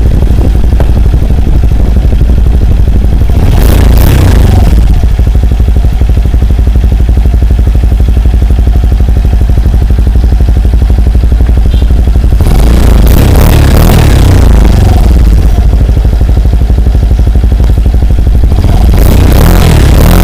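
Suzuki Skydrive Sport scooter's single-cylinder engine running through an Exos X6 racing exhaust pipe, idling and revved three times: about four seconds in, for a few seconds from about twelve seconds in, and again near the end.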